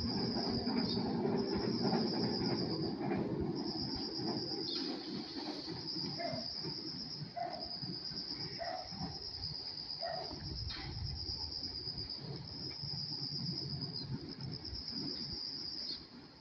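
Insects trilling steadily in a high, pulsing chirr, while the low rumble of a train fades away over the first few seconds.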